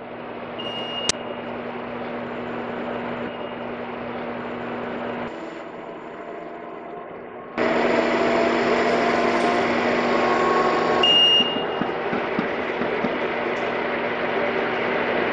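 Hydraulic bar feeder for a CNC lathe running with a steady mechanical hum as it pushes a metal bar forward through its feed tube. A short high beep sounds about a second in and again near eleven seconds, and the hum gets abruptly louder about halfway through.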